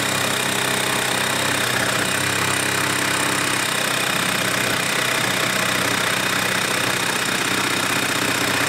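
Older Ryobi cordless jigsaw cutting along a wooden board on orbital setting 3, its motor and blade running steadily at an unchanging level.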